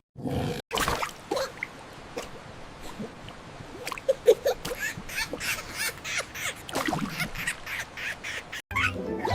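Cartoon sound effects: a busy run of quick clicks and knocks with short squeaky animal cries. Music comes in near the end.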